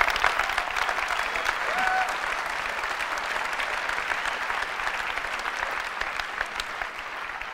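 Large audience applauding, a dense clatter of many hands clapping that slowly dies away toward the end.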